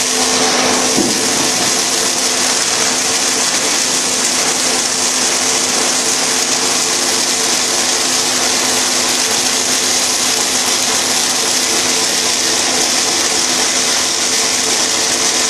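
Snack puff extruder running steadily: an even, high hiss over a low, constant hum, with no change in speed or load.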